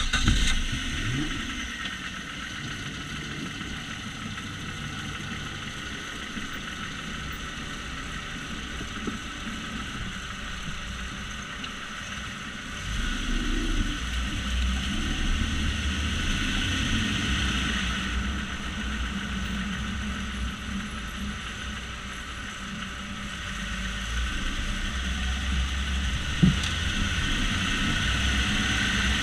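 Jeep Grand Cherokee running just after start-up, then moving, with a low rumble that swells about halfway through and again near the end, over a steady grinding from the front right wheel. One sharp knock comes near the end.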